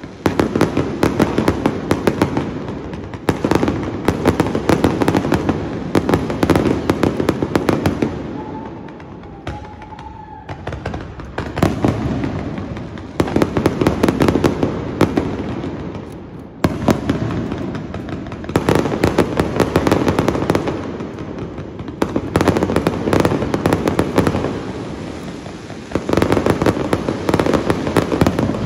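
Aerial fireworks bursting close by in a dense, rapid crackle of pops and bangs. The bursts come in waves that start sharply every few seconds, with a quieter stretch about a third of the way through.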